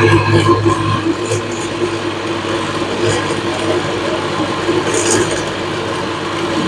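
Countertop blender motor running steadily under load, blending hard produce with water.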